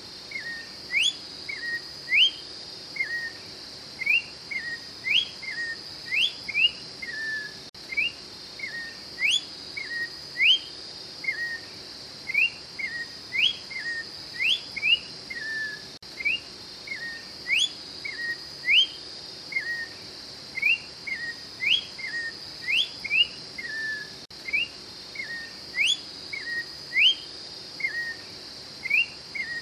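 Orange-backed troupial (Icterus croconotus) singing: clear whistled phrases of sharp upward-sliding notes alternating with short falling notes, repeated about every two seconds, over a steady high-pitched hum.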